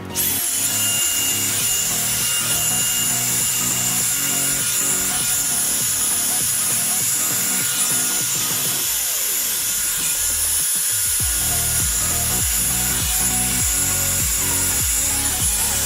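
Revlon One-Step hair dryer brush running loud: a steady rush of air with a thin, high motor whine, over background music.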